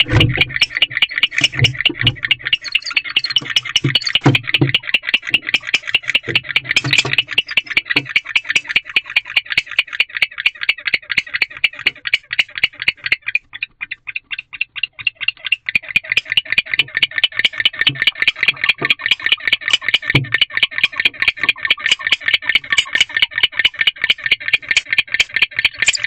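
Male barn owl giving its courtship call: a rapid, even series of short chirps, several a second, which breaks off for about two seconds midway and then resumes. A few low knocks sound in the first few seconds.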